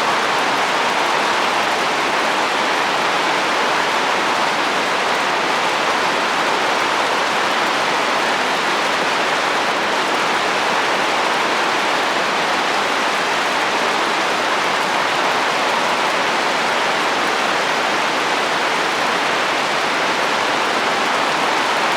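Steady heavy rain falling on a roof, an even hiss with no let-up or distinct drops standing out.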